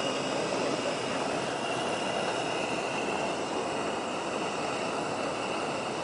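Hot air balloon's propane burner firing: a steady rushing noise with a faint high whistle running through it.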